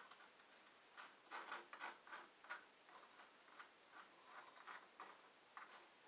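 Soft, irregular clicks and light scrapes, a few a second, from small objects being handled close to the microphone.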